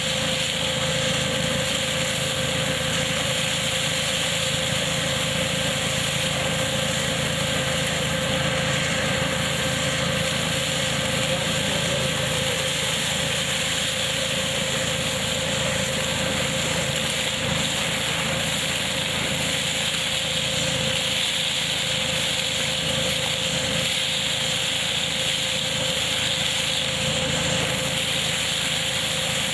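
A tractor-driven KF-501 hazelnut harvesting machine running steadily, with the tractor engine and the machinery making a constant noise and a steady whine.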